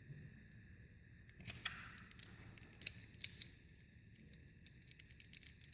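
Faint, small metallic clicks and ticks, a few louder ones between about one and a half and three and a half seconds in: the springs and pins being removed from a pin-tumbler lock cylinder.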